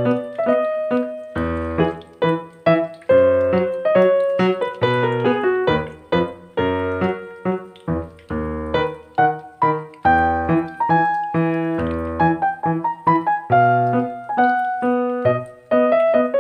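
Background piano music: a steady run of notes over a bass note that changes about every second and a half.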